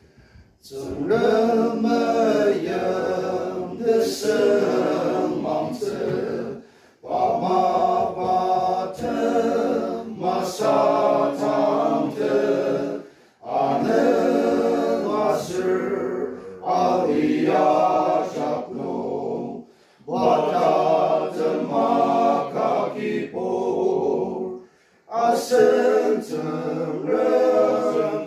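A small men's group singing a hymn together, unaccompanied, in several voices, with short breaks for breath between phrases.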